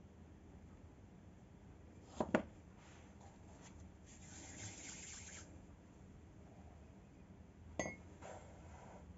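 Small scissors set down on a silicone baking mat, a quick double tap about two seconds in, then a soft rubbing of hands over the floured mat and dough, and another sharp click with a brief ring near the end. Faint throughout.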